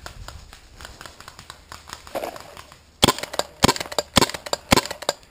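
Paintball marker firing four sharp shots about half a second apart, starting about three seconds in.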